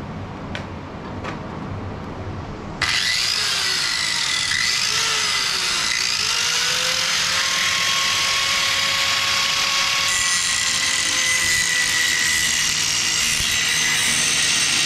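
Electric angle grinder switched on about three seconds in, then grinding the steel deck of a Bush Hog BH15 rotary cutter down to bare metal, a loud steady whine whose pitch wavers as the disc bites the metal. Before it starts, only a few light handling clicks.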